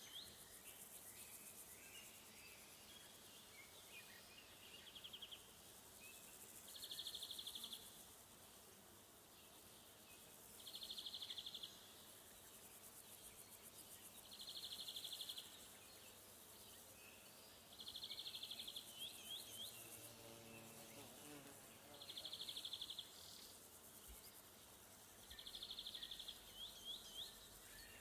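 Insects stridulating: six bursts of rapid, pulsed buzzing, each about a second long and repeated every three to four seconds, over a fainter, continuous very high-pitched insect trill. Short rising chirps follow a couple of the bursts.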